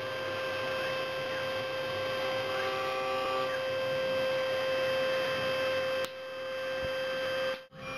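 CNC milling machine running: a steady motor hum and whine made of several fixed tones, with faint short rising and falling glides. The sound changes abruptly about six seconds in and drops out briefly near the end.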